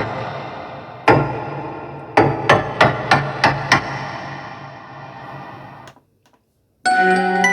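Korg M1 synthesizer playing a percussive patch: struck-sounding notes, each ringing out long, one at the start, one about a second in, then six quick hits about three a second. It cuts to silence about six seconds in, and a new sustained synth patch starts near the end.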